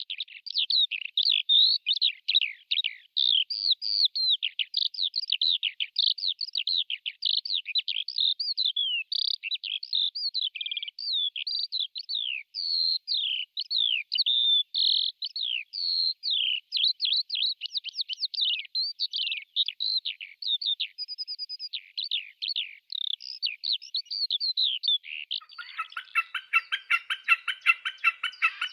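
A songbird singing one long, unbroken song of quick, varied sweeping notes. About 25 seconds in, a different bird takes over with a lower, rapid rattling call of fast repeated notes.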